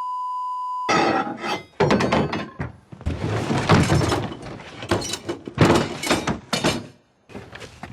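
A steady, high beep-like tone lasting about a second, then a dense run of loud crashes, thuds and breaking sounds, with a brief pause near the end.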